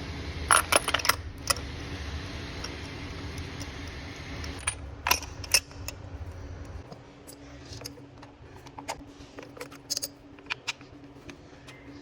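Metal tools and small parts clinking and rattling as they are handled, in several short clusters of sharp clinks, over a low steady hum that stops about seven seconds in.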